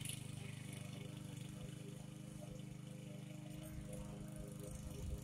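Walk-behind gasoline lawn mower engine running steadily, faint, with a few low rumbles near the end.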